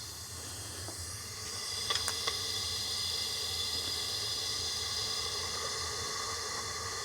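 A steady hiss, a little louder from about a second and a half in, with a few faint light clicks near two seconds.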